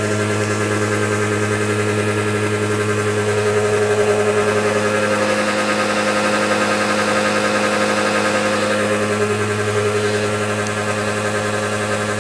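A Mitsubishi car's engine idling steadily with the hood open, running with apple juice poured into its oil filler in place of engine oil.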